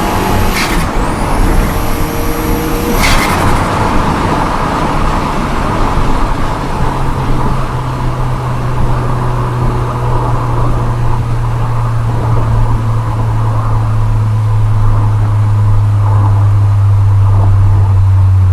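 VW Golf GTI MK4's 1.8 20-valve turbo four-cylinder engine running while driving. Two short sharp bursts near the start, with a high whistle rising after the first, then a steady low drone that slowly drops in pitch and grows louder toward the end.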